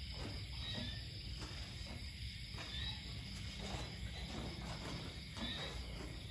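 Steady chorus of crickets and other night insects chirring in a high band, over a low rumble, with a few soft scattered rustles.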